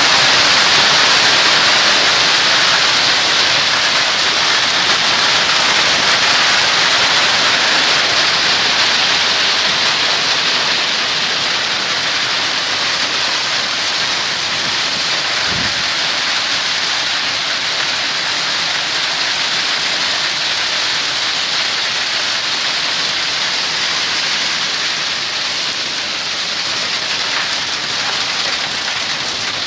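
Torrential rain and hail from a supercell thunderstorm: a loud, steady hiss of the downpour that eases slightly toward the end, with one brief low thump about halfway through.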